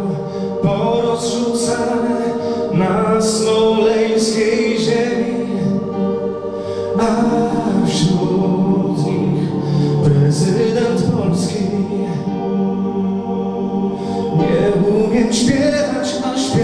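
A man singing into a microphone, the words sung on long held notes.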